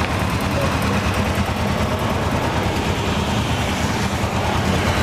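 Kawasaki KLR650's single-cylinder four-stroke engine running steadily, its low exhaust note pulsing rapidly, with a steady hiss over it.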